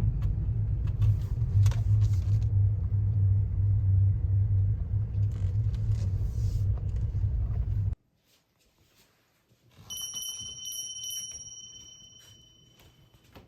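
Car engine idling, heard from inside the cabin as a steady low rumble that cuts off about eight seconds in. After a short silence a high ringing tone starts and slowly fades away.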